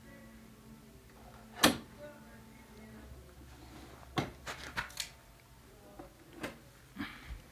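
Sharp clicks and knocks of hand tools and bolts, nuts and washers being handled during a repair: one loud knock about a second and a half in, a quick run of four clicks a little past the middle, and a few lighter ones near the end.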